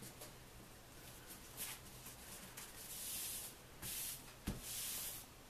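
Paper napkin being creased and smoothed by hand: faint rustling at first, then from about three seconds in several swishes of palms sliding over the folded paper, with a couple of soft thumps of hands pressing on the countertop.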